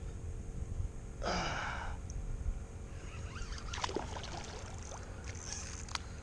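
A person lets out one breathy exhale about a second in, followed by scattered small clicks and taps over a low, steady rumble.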